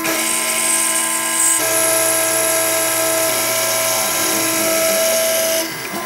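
Gravograph M20 rotary engraver's spindle running with a steady whine and hiss as its cutter engraves a stainless steel tag on a deeper pass. The sound shifts about a second and a half in and drops away near the end.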